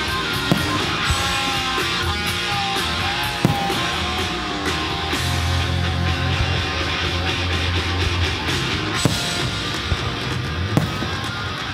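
Loud rock instrumental with guitar and drums: the fireworks show's soundtrack, with a few sharp cracks standing out.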